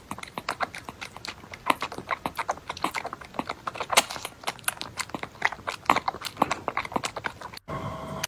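Newborn kitten suckling milk from a nipple-tipped feeding syringe, making rapid clicking smacks, several a second, some louder than others. Near the end the clicking breaks off and a brief steady tone follows.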